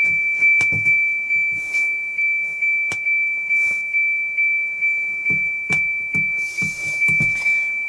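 A steady high-pitched electronic tone over a regular low pulsing of about three beats a second, with a few sharp clicks.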